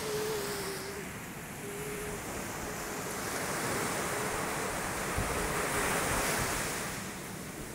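Small surf waves breaking and washing up the sand, swelling louder in the middle, with wind buffeting the phone's microphone.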